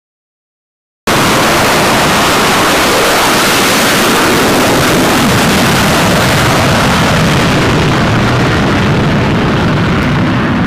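Loud, steady jet engine noise from F/A-18 fighters on an aircraft carrier's flight deck. It starts suddenly about a second in, after silence, and its high hiss thins out near the end.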